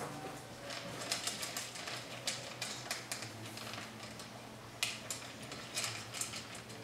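Puppy eating from a stainless steel bowl: irregular clicks and crunches of food and teeth against the metal.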